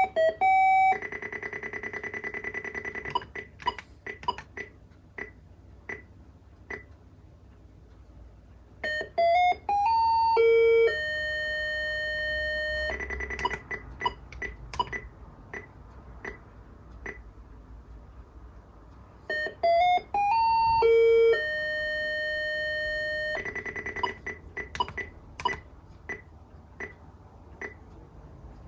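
Citizen Rhythm "Flash Morning" novelty alarm clock sounding its electronic alarm: a quick rising chime tune and then held electronic tones, repeating about every ten seconds. A steady clicking, about one and a half a second, runs between the phrases.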